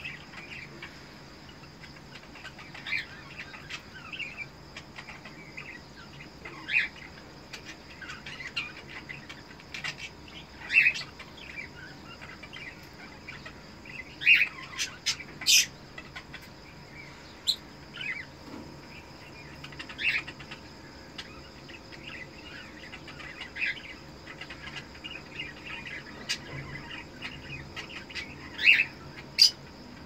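Cockatiel chirping and calling in short separate notes, one every second or two, with several sharper, louder chirps mixed in over a faint steady high tone.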